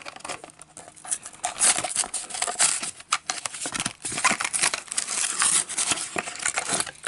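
Plastic blister packaging and cardboard backing crinkling and tearing as a 1:64 Hot Wheels diecast car is opened, with a steady run of crackles and clicks.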